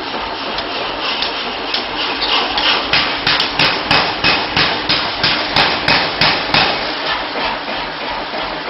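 Rapid, regular metal-on-metal hammer strikes, about three a second, building up a couple of seconds in and dying away near the end, over a steady hum of workshop machinery.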